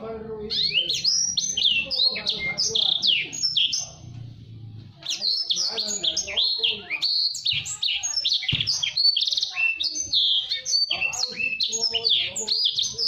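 Blacksang, a black-throated canary × canary hybrid, singing a fast, tightly packed song of high chirps and trills, in two long runs with a pause of about a second in between.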